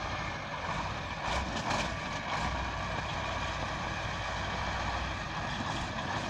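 Heavy truck's engine running steadily, with its low hum growing stronger for a few seconds in the middle, as the truck works through deep snow.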